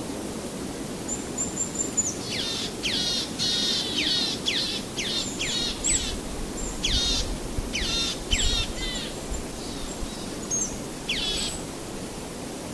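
Bird song: a run of quick chirps, each sweeping sharply downward in pitch, over a steady background hiss. The chirps come in a busy stretch, thin out, and there is one more burst near the end.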